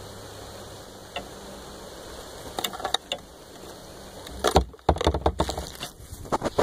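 Handling noise on a phone's microphone: a low rumble with a few scattered clicks, then from about four and a half seconds in a run of loud, irregular knocks and scrapes as the phone is gripped and moved.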